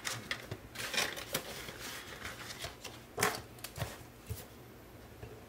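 Paper bills and cash envelopes being handled in a binder: rustling and light taps, loudest about a second in and again just after three seconds, then settling down near the end.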